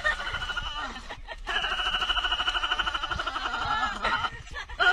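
A man's high-pitched, rapid cackling laugh. Short bursts come at the start, then after a brief pause one long run of quick pulses of about two and a half seconds.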